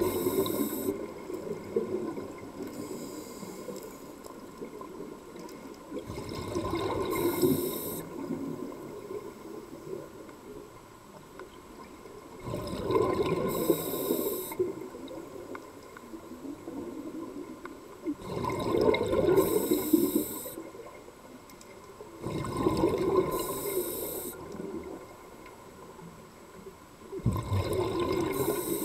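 Scuba diver breathing through a regulator underwater: a bubbling rush of exhaled air about every five seconds, six times, each lasting a second or two, with quieter water sound between breaths.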